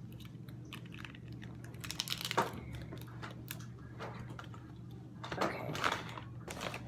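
Scattered taps, clicks and rustles of fast-food paper and cardboard packaging and containers being handled, louder about two and a half seconds in and again near six seconds. A steady low hum runs underneath.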